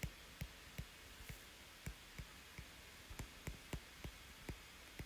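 Faint, irregular clicks of a stylus tip tapping and sliding on a tablet screen during handwriting, about three or four a second.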